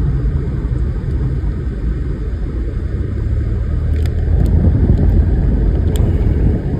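Steady low road and engine rumble inside a moving car's cabin, growing a little louder about two thirds of the way in, with a few faint clicks.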